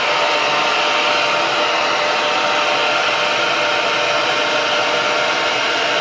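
Black Diamond professional hair dryer running steadily on hair: a constant rush of blown air with a faint motor whine underneath.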